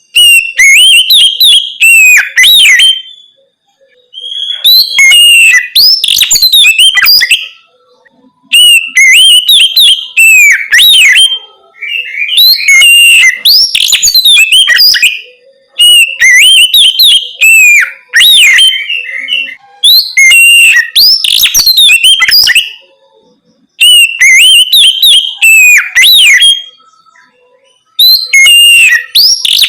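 Oriental magpie-robin (kacer) singing loud, clear whistled phrases in the 'ngeplong' style: about eight bursts of song, each two to three seconds long, with short pauses between them.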